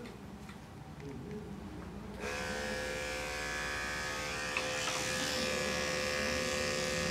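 Electric dog grooming clippers switch on about two seconds in and run with a steady buzzing hum while trimming a small dog's coat.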